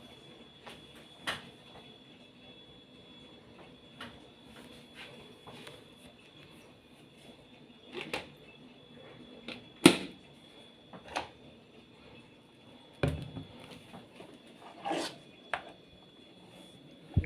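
Electric kettle being handled: scattered sharp clicks and knocks, irregularly spaced, the loudest about ten seconds in, over a faint steady high whine.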